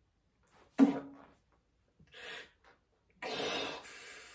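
A man breathing hard between sets of a weight exercise. There is a sharp, loud huff about a second in, a short breath at about two seconds, and a longer exhale from about three seconds.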